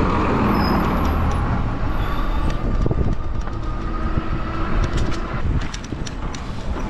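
Traffic noise and wind on the microphone while riding an e-bike. A faint steady whine fades out about five and a half seconds in, and a few sharp clicks follow near the end.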